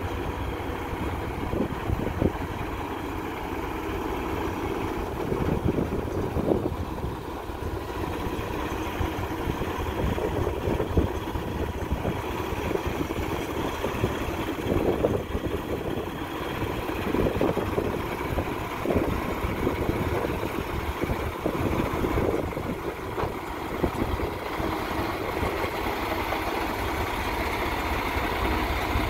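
Paccar MX-13 diesel engine of a 2019 Peterbilt 389 idling steadily.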